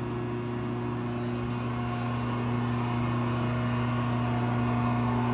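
Betenbender 6-50 hydraulic press brake's 10 hp electric motor and hydraulic pump running with a steady hum. A faint higher whine joins about two seconds in, and the sound grows slightly louder toward the end.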